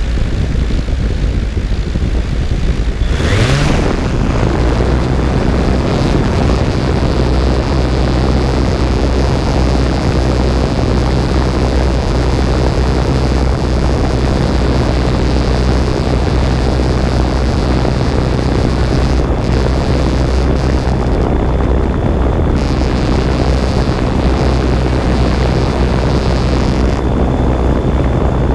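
Camera drone's propellers heard close up: the motors spin up with a short rising whine about three seconds in as it lifts off, then run with a steady hum and rushing air as it climbs.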